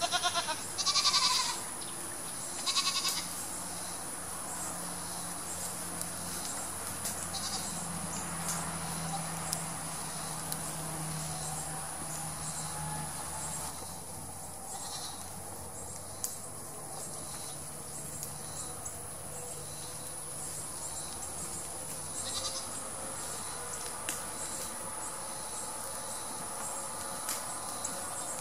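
A Nigerian Dwarf goat bleats three times in the first three seconds. A steady, high insect drone runs underneath.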